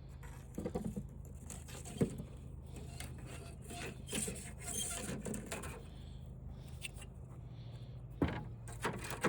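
Plastic sheets and films from a flat-screen TV's panel being handled and pulled apart: rustling and crinkling with a few sharp knocks, over a steady low hum.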